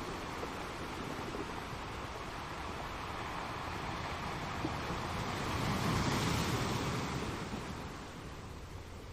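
Sea waves washing, with wind buffeting the microphone; the sound swells about six seconds in, then eases off.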